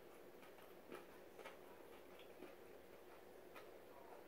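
Near silence: room tone with a few faint, scattered short clicks.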